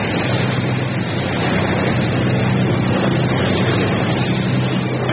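Fishing boat at sea in heavy weather: a steady engine hum under a loud, constant rush of wind and breaking sea.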